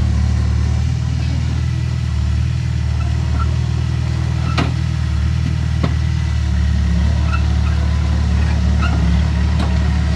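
Komatsu bulldozer's diesel engine running steadily under work, a deep continuous rumble, with two sharp metallic knocks about halfway through.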